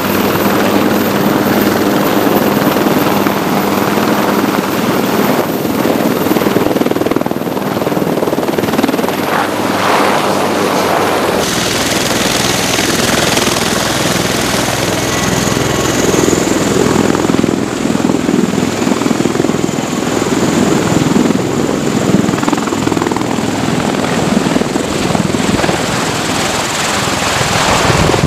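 Marine AH-1Z Viper attack helicopter flying by, with steady rotor and turbine noise. About 11 seconds in it switches to an MV-22 Osprey tiltrotor, its big rotors running with a steady high turbine whine as it lifts off.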